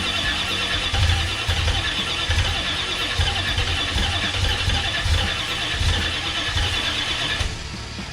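The engine of a VC Holden Commodore being cranked by its starter motor, a pulsing rumble with a steady whine, without catching. The cranking stops suddenly about seven and a half seconds in.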